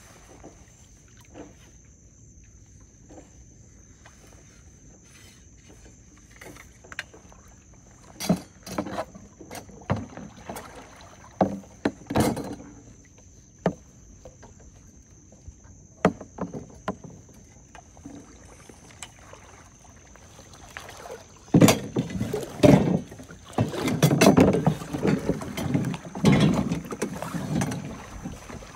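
Water sloshing and splashing as a person wades in shallow water in waders, with scattered knocks of PVC pipe and gear against a floating tub; the splashing and clatter get denser and louder in the last several seconds.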